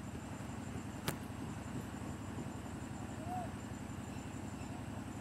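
Faint steady low hum, with one sharp click about a second in and a brief faint chirp a little past three seconds.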